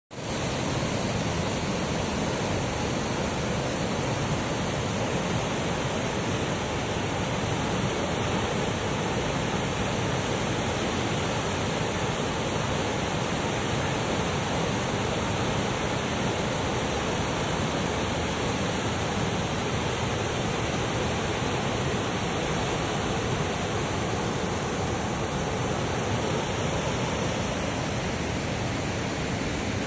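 Water pouring through an open dam spillway gate and churning in the pool below: a steady, unbroken rushing.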